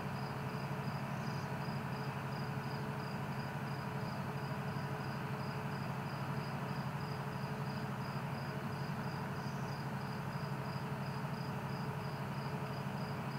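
A cricket chirping steadily, about three high chirps a second, over a steady low hum.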